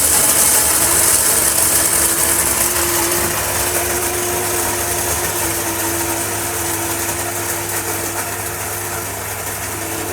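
Electric coffee and spice grinder with a stainless steel bowl running continuously while grinding dried peas into powder: a steady motor whirr with loud grinding noise that grows slightly quieter over the ten seconds.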